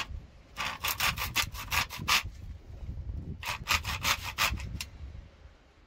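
Hand saw cutting through a bamboo pole in quick back-and-forth rasping strokes, two runs of strokes with a short pause between them, stopping about five seconds in.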